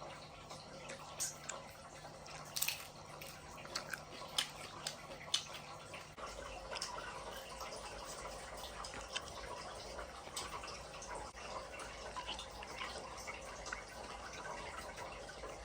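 Close-up chewing of whole shrimp cooked with the shells and legs on: irregular crunchy cracks and wet mouth sounds, with the sharpest cracks in the first half.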